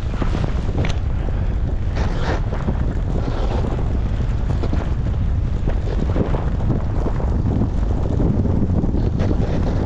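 Loud, steady wind buffeting on a GoPro's microphone while moving through a snowstorm, with a few brief hissing scrapes mixed in.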